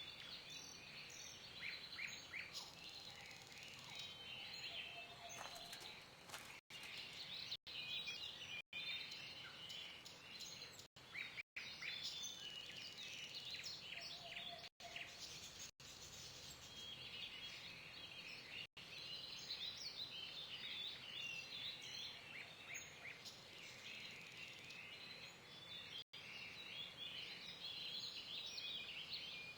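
Birds singing and chirping in a continuous chorus of short, high calls, with the sound cutting out briefly many times.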